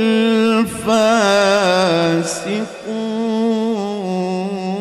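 A male qari's voice in melodic Quran recitation (tilawah), drawing out the phrase 'ulā'ika humul fāsiqūn' in long, high notes ornamented with quavering runs. There are two short breaks, about three quarters of a second in and again near the three-second mark.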